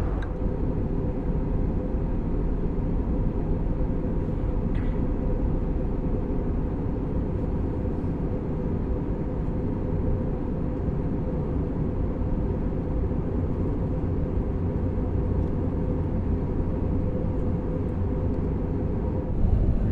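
Steady in-flight cabin noise of an Airbus A321neo: a low, even rumble of engines and airflow with a steady hum, getting slightly louder near the end.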